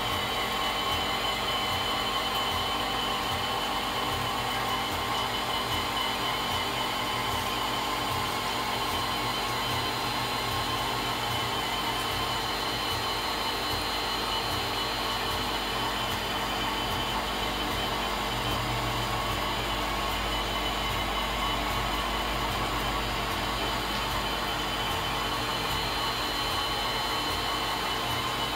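5-axis CNC machining center milling a metal block under coolant: a steady whir of the spindle and cutting, with several constant whining tones over a hiss of coolant spray.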